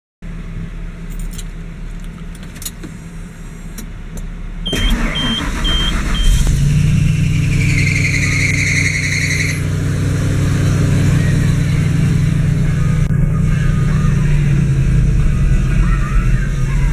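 Ford F-series straight truck engine cranked on the starter and catching, then idling steadily. Four short beeps sound while it cranks, and a high-pitched noise rides over the engine for about two seconds after it catches.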